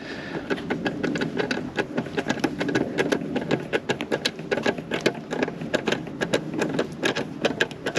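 Hand ratchet with a 10 mm socket clicking rapidly and unevenly as a small nut is wound onto its stud and tightened.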